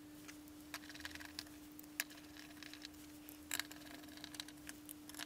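Faint scattered clicks and light knocks of hands handling a small metal preheater case and pressing a rubber foot into its base, with a sharper click about two seconds in, over a faint steady hum.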